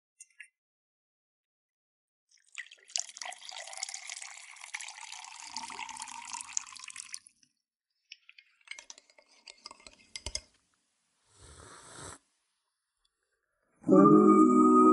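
Isolated vocal track of a song: faint, garbled, watery-sounding leftovers from stripping out the instruments come and go, with a few clicks. About a second before the end, a loud held vocal note sets in, its pitch wavering slightly.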